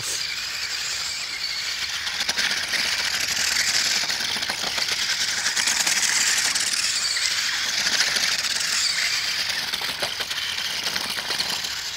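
Electric drive motor and gears of a Spin Master All-Terrain Batmobile RC truck whirring as it drives circles in snow, the high whir swelling and easing.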